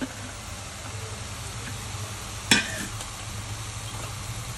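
Chopped okra sizzling in hot oil in a pan as it is stirred in with a spoon, with one sharp clank about two and a half seconds in.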